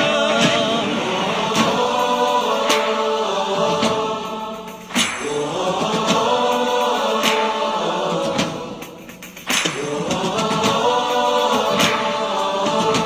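Background music: a song passage with a choir singing long, held wordless notes in phrases a few seconds long.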